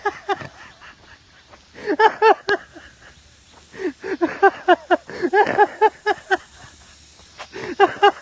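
A man's helpless fits of laughter, in rapid pitched ha-ha pulses: a short burst about two seconds in, a long run from about four to six and a half seconds, and another near the end.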